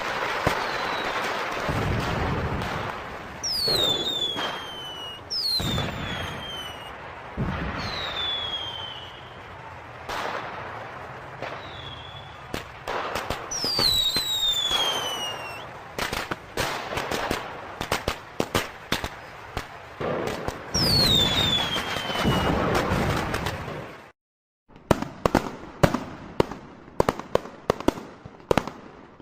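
Fireworks going off: several whistles that fall in pitch, each with bangs and crackling. After a brief cut-out near the end comes a fast run of sharp firecracker pops.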